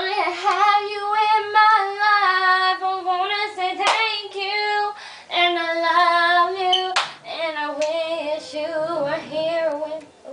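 A young female voice singing unaccompanied, holding long notes with a wavering, vibrato-like pitch and sliding runs, in several phrases with short breaths between. Two sharp clicks cut in, about four and seven seconds in.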